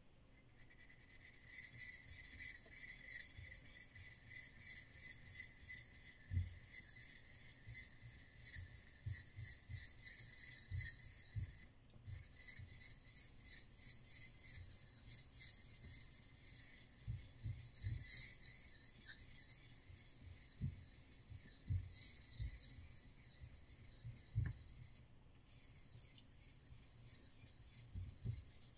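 Kanna (Japanese plane) blade rubbed back and forth on a wet Japanese natural whetstone, a Tajima stone: a steady rasping scrape of steel on stone, stroke after stroke, with two brief pauses and a few soft low knocks.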